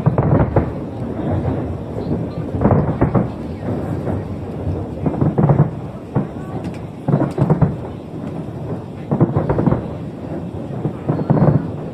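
Aerial fireworks shells bursting in a series of heavy, rumbling booms, one about every two seconds.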